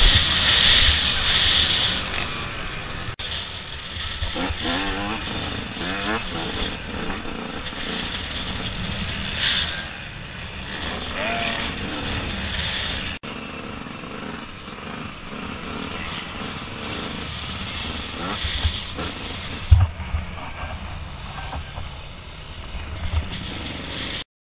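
Yamaha YZ125 two-stroke motocross engine running hard and revving up and down through the gears under heavy wind rush on a helmet-mounted camera. There is one sharp knock about twenty seconds in.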